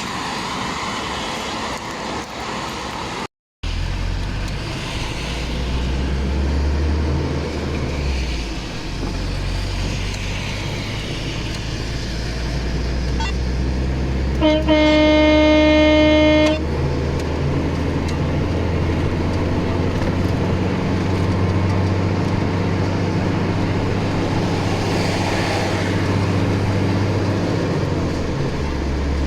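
Vehicle engine running steadily on the road, with a single vehicle horn blast of about two seconds around the middle.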